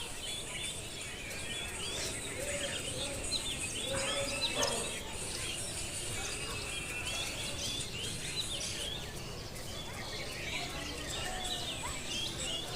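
Outdoor ambience of many small birds chirping in quick, gliding calls, over a steady high hiss.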